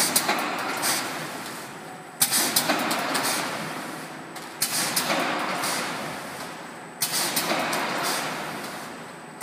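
Vertical form-fill-seal packaging machine with an auger filler running through its bagging cycle: a sharp clack and a quick rattle of clicks, then a rush of noise that dies away. It repeats about every two and a half seconds, four cycles.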